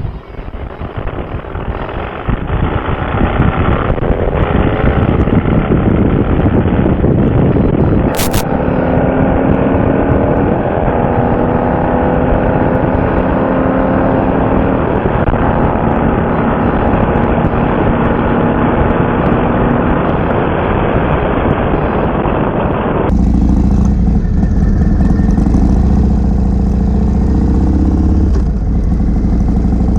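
Motorcycle engine heard from a helmet-mounted microphone with wind rush. It pulls away and climbs through the revs over the first several seconds, then runs steadily at cruising speed. Near the end the sound changes abruptly to a lower, heavier engine note.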